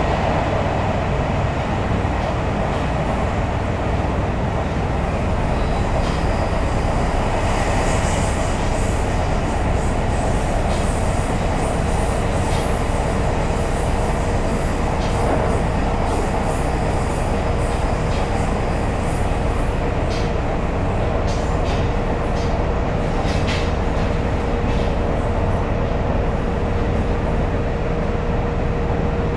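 Onboard running sound of a JR YC1 series hybrid railcar with Hitachi VVVF traction equipment: a steady rumble of wheels and running gear. A steady tone grows stronger about a third of the way in, and a run of sharp clicks comes about two-thirds through.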